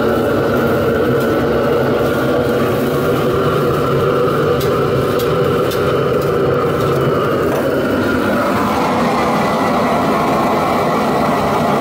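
Gas wok burner running hard under a wok of hot oil, the oil sizzling steadily as vegetables and pork fry in it. Metal ladle and strainer make a few sharp clinks against the wok.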